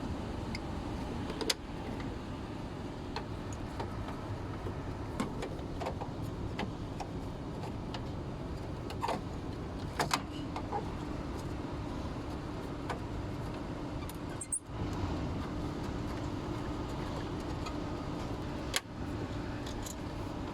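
Steady whir of a VFD with its newly replaced small 24 V DC exhaust fan running, with a few sharp clicks of handling. A steady hum tone joins about eight seconds in.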